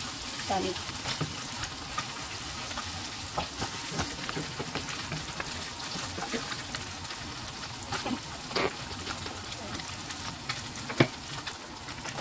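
Eggs sizzling in hot oil in a nonstick pan while a wooden spatula stirs and breaks them up, fried until crunchy, with scattered scrapes and taps of the spatula. One sharper tap comes near the end.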